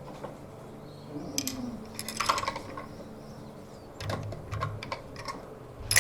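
Scattered light clicks and clacks of rifle gear being handled, in small clusters, with a much louder deep thump right at the end.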